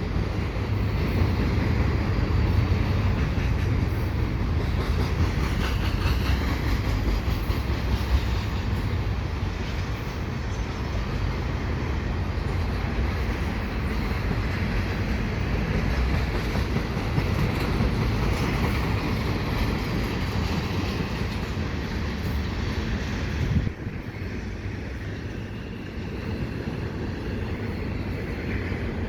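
Double-stack container freight train rolling quickly past, with a steady, heavy noise of the cars' wheels on the rails. About three-quarters of the way through, the noise drops suddenly to a somewhat lower level.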